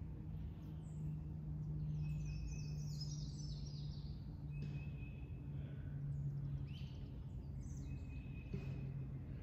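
Birds singing in the woods: a quick descending series of chirps about two seconds in and several long, even whistled notes. A steady low hum runs underneath throughout.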